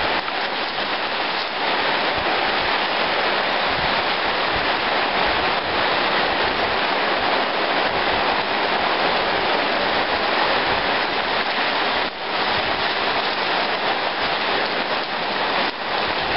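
Heavy tropical-storm rain pouring down in gusty wind: a steady, dense hiss, with water streaming off a tarp overhead.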